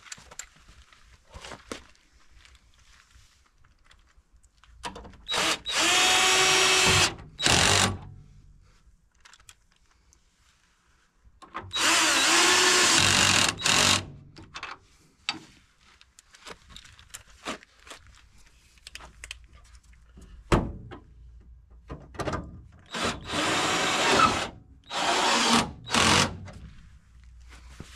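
Cordless drill-driver running in short spells, the longest about two seconds, driving bolts at the mounting brackets of a car's removable front end. Light clicks and knocks of metal parts come between the runs.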